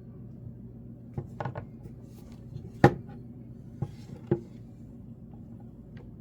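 A few sharp knocks and clicks of objects being handled on a hard surface, the loudest a single sharp knock about three seconds in, over a steady low hum.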